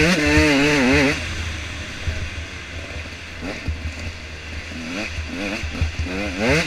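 Off-road dirt bike engine revving hard and backing off as it rides a woodland trail: the pitch climbs to a high held rev in the first second, drops away, then climbs again twice near the end, over a steady low rumble.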